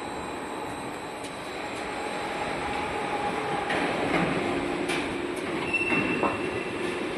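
Roll forming machine for angle snow guard profiles running, with steady mechanical noise of the steel strip moving through the forming rollers. A steady whine comes in about four seconds in, with a few sharp clicks.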